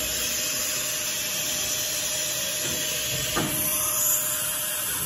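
A loud, steady hiss that cuts in and cuts off abruptly, with a faint steady whistle running under it.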